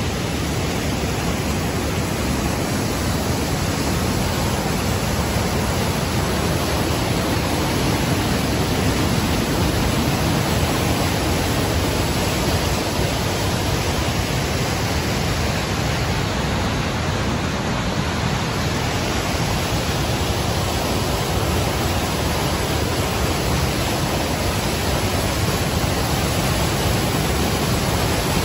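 River white water rushing over boulders and rock slabs in rapids and small cascades: a loud, steady rush of water.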